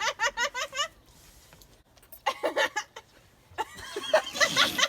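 Rapid, high-pitched giggling laughter in quick bursts that breaks off about a second in, returns briefly, then picks up again near the end.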